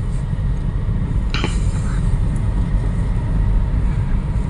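Car driving on a rough dirt road, heard from inside the cabin: a steady low rumble of engine and tyres. A brief hiss about a second and a half in.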